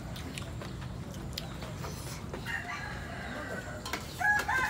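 Roosters crowing: a fainter long crow about halfway through, then a louder crow starting near the end.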